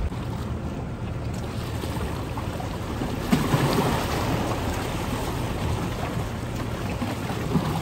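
Waves washing in at the shoreline, with wind on the microphone.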